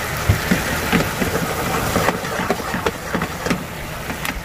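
Mapo eggplant sauce, thickened with potato-starch slurry, bubbling at a simmer in a frying pan, with a steady low bubbling and frequent irregular pops of bursting bubbles. A metal ladle stirs through it near the end.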